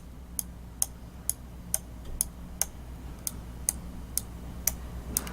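Roccat EMP gaming mouse button switch clicking over and over, sharp plastic clicks about two a second. The switch gives a loud clack as the button springs back, which the owner finds loud and annoying.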